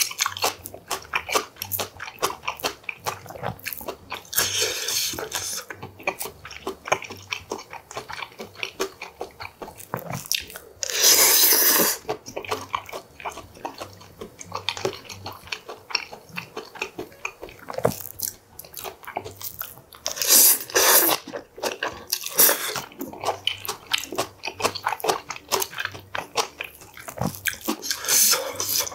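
Close-miked chewing and crunching of steamed and braised stingray, many quick wet bites and clicks, with a few louder, longer mouth noises in the middle and near the end.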